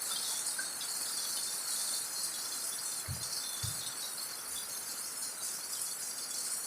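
A steady, high-pitched chorus of insects, like crickets trilling. Two soft low thuds come about three seconds in.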